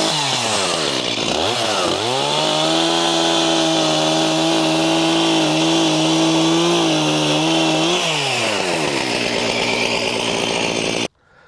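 Two-stroke chainsaw trimming dirty nubs off logs: the engine drops off throttle, blips up briefly, then holds a steady high speed for about six seconds before winding down. The sound cuts off abruptly near the end.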